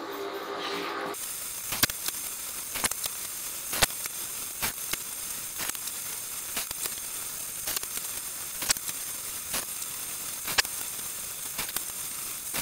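Hardwood slats being set down and stacked on a wooden workbench: sharp, irregular wooden clacks about once a second over a steady hiss.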